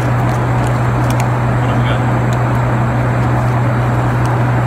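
A steady low hum with a rushing noise under it, unchanging throughout, over a few light clicks as the foil lid and plastic toy pieces of a Kinder Joy egg are handled.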